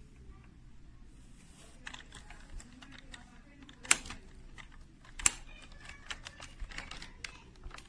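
Computer keyboard keys clacking irregularly as they are pressed, with two sharper, louder clacks about four and five seconds in.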